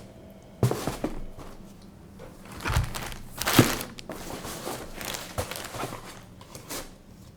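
Handling noise as new running shoes and their packaging are turned over: a few sharp knocks, the clearest about half a second in and around three and a half seconds in, over soft rustling.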